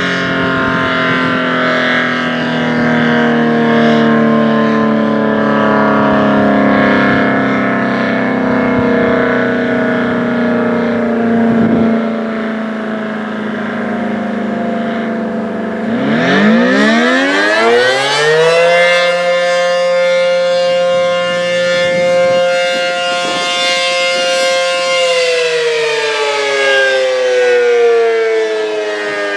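ACA P-10 rotating outdoor warning siren winding down, its pitch sliding slowly lower as the steady alert signal ends. About halfway through it spins back up fast into the wail of the attack signal: a quick climb, a hold of several seconds, a slide down and a fresh climb near the end.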